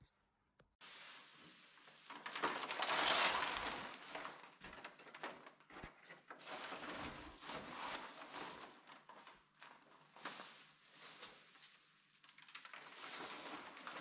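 Hands scooping loose birch wood shavings off the floor and pushing them into a bag: an irregular rustling and crunching that starts about a second in and is loudest two to four seconds in.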